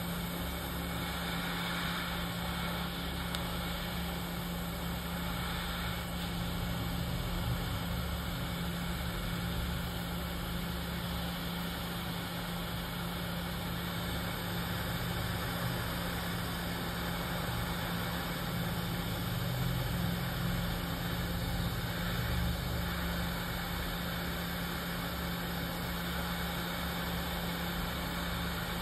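Hot air rework station blowing steadily onto a phone logic board: an even rush of air with a constant low hum from its blower, while the solder under the BGA chips is heated to free them.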